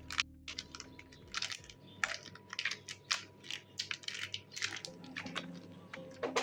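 Slime being squished and poked by hand, making irregular sticky clicks and pops several times a second.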